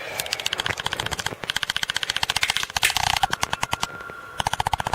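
Phone ringing with a fast, rattling bell-like ring, about a dozen strikes a second, breaking off briefly twice.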